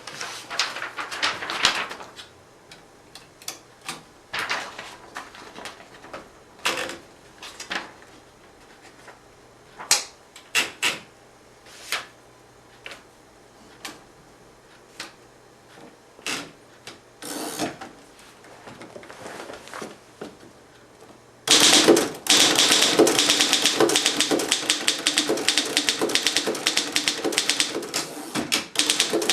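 1925 Underwood No. 3 manual typewriter being typed on: at first single keystrokes struck slowly and irregularly. About twenty seconds in, the sound turns suddenly much louder into a fast, continuous run of clacking.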